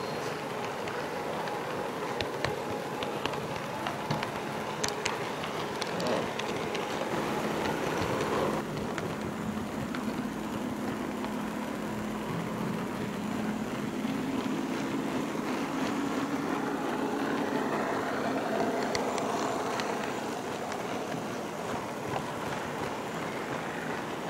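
HO-scale model train running on the track, picked up by a camera riding on one of its cars: a steady rolling rattle of small wheels on rail, with sharp clicks over rail joints and turnouts, most of them in the first several seconds, and a faint steady hum through the middle.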